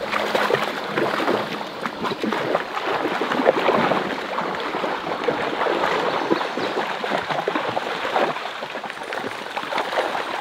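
Several Rottweilers wading and splashing through a shallow river, with uneven splashes over the steady rush of the flowing water.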